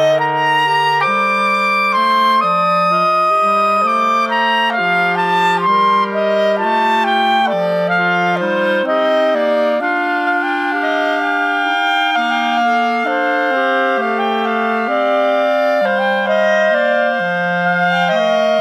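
Background instrumental music: several melodic lines of held notes moving in steps, each note lasting about half a second to a second.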